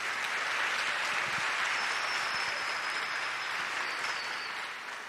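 A large seated audience applauding. The clapping is full at first and thins out gradually toward the end.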